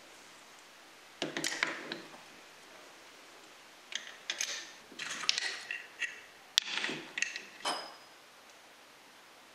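Clicks, knocks and small metallic clinks of brass fittings and electrode handles being handled and fitted into the wooden case of a portable 1890s electrotherapy set (a Gaiffe-type pocket battery). They come in short clusters, about a second in, again from about four to six seconds, with the sharpest single click about six and a half seconds in.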